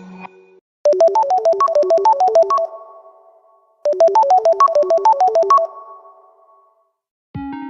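A Samsung Galaxy ringtone: a quick run of bright synth notes, about ten a second, played twice. Each run lasts about two seconds and then rings out. A different, lower tone starts just before the end.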